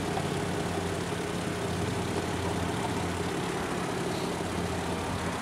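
Volkswagen Eurovan-based Rialta motorhome's engine idling with a steady low hum, left running to bring the transmission fluid up to temperature.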